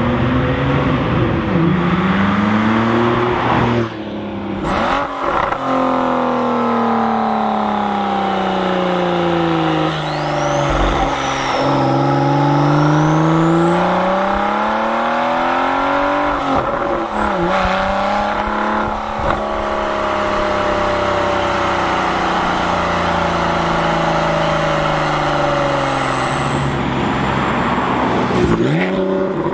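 Porsche 991.2 Carrera 4S twin-turbo flat-six through Fabspeed sport headers and sport cats with the exhaust valves open. It accelerates and lets off again and again, its pitch climbing and falling, and the sound breaks off abruptly a few times where passes are cut together.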